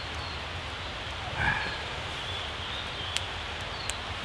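Small wood campfire crackling, a few sharp pops over a steady hiss, with a short louder sound about a second and a half in as snails are set into the ashes.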